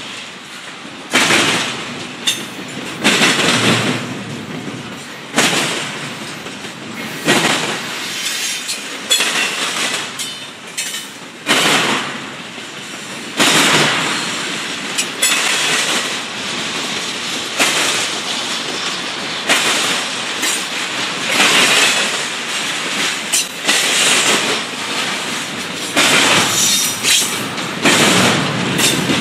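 Double-stack container freight train rolling past close by: the steel wheels clatter in a burst every second or two as each car's wheelsets go by, over a steady rumble of the moving cars.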